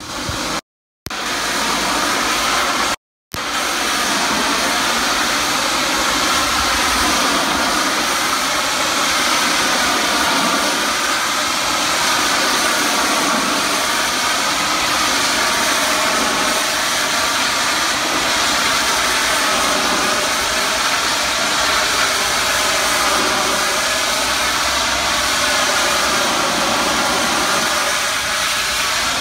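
Hot-water pressure washer running, its high-pressure spray hissing steadily against a brick wall. The sound cuts out briefly twice in the first few seconds.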